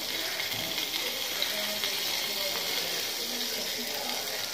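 Nigella seeds (kala jeera) sizzling in hot oil in a small kadai, a steady hiss.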